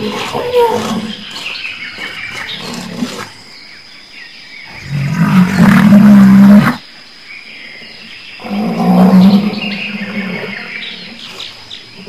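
A big cat roaring: two long, loud roars, one about five seconds in and another about eight and a half seconds in, after a few seconds of quieter growling and calls.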